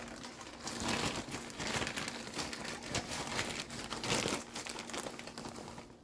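Bag of light brown sugar crinkling as it is handled and opened to pour into the marinade, an irregular crackling that fades near the end.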